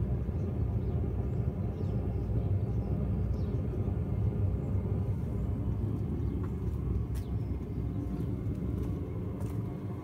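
A 5 kW Chinese diesel air heater running through its start-up cycle before ignition, heard close to its exhaust silencer: a steady low rumble with a faint hum as the combustion fan picks up speed.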